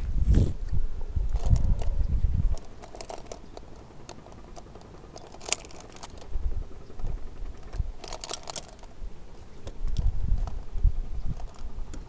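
Tree climber's metal climbing hardware being handled: carabiners and rope devices clinking in scattered light clicks and short jingles, with low knocks and rumble in the first couple of seconds and again near the end.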